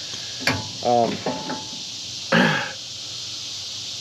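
Brief voice-like sounds, a short mumble or vocalisation, then a short rough burst near the middle, over a steady background hiss.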